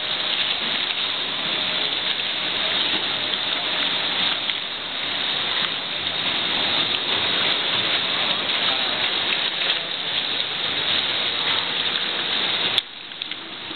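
Jupiter waste shredder tearing up mixed municipal waste: a steady, dense crackling rattle. Near the end it drops off suddenly after a click.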